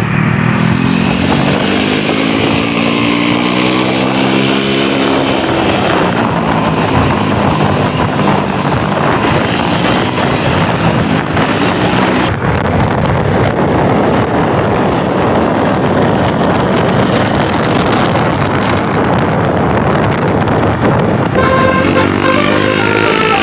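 A bus's engine revs, its pitch climbing and falling over the first few seconds. It is followed by a loud, steady rumble of engine and road noise. Near the end a musical multi-tone Basuri telolet horn starts playing.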